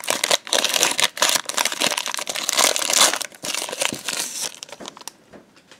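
Foil wrapper of a Pokémon trading-card booster pack crinkling and tearing as it is pulled open by hand, a dense run of quick crackles that dies away about a second before the end.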